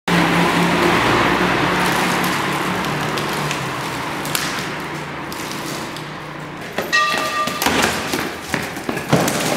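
A steady rumble and hiss with a low hum slowly fades, then from about seven seconds a board is wrenched off a shopfront: a run of knocks and cracking thumps, with a short ringing tone near the start of the knocks.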